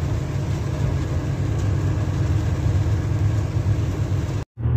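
Steady low rumble of a vehicle's engine and road noise heard from inside the cab while driving on a wet highway. The sound cuts out completely for a moment near the end, then the rumble resumes.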